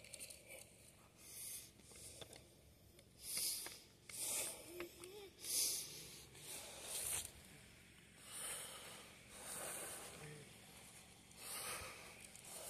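A man's breathing and sniffles close to the microphone: short breathy hisses, about one a second.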